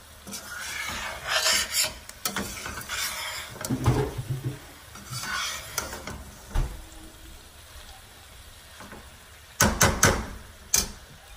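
Slotted metal spatula stirring and scraping okra, onions and tomatoes around a stainless steel sauté pan while the mixture sizzles. Near the end, several sharp metal knocks as the spatula strikes the pan.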